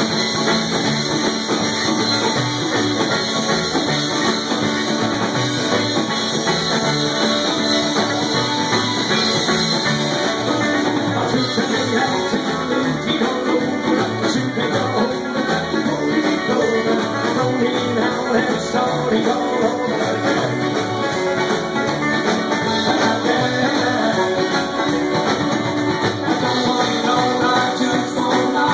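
Live acoustic string band playing without a break: acoustic guitar, mandolin, upright bass and banjo.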